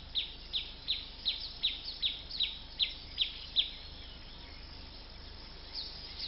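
A bird chirping in a rapid series of short, falling chirps, about three a second, which stop after about three and a half seconds. A few fainter chirps follow near the end over a faint steady background.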